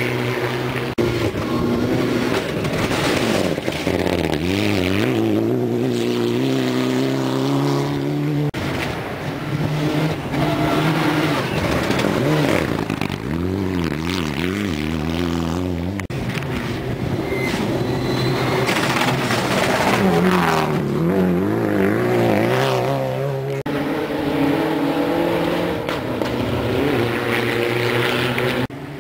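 Rally car engines revving hard, rising and falling in pitch through gear changes and corners on a gravel stage. The sound breaks off abruptly and starts again several times.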